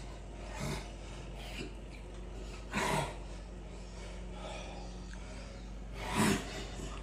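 A man breathing hard and sharply while lifting dumbbells: four short forceful breaths, the loudest about three seconds in and near the end, over a low steady hum.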